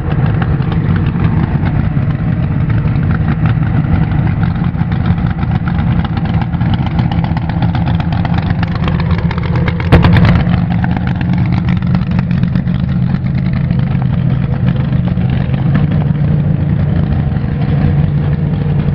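Drag-racing car's engine idling steadily, with one sharp bang about halfway through.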